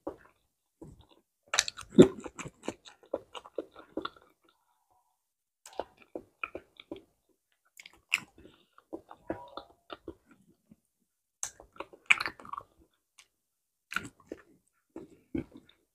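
A person chewing soft ripe banana: irregular wet mouth clicks and smacks in short clusters with quiet gaps, as a banana is peeled and bitten into about two seconds from the end.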